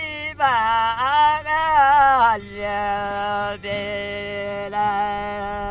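Background music with a male voice singing: a wavering, ornamented phrase, then long held notes from about two and a half seconds in.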